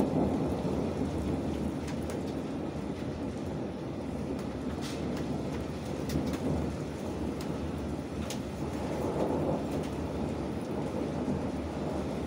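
Thunderstorm: steady rain with a low rumble of thunder that swells near the start and again about nine seconds in. A few sharp ticks sound over it.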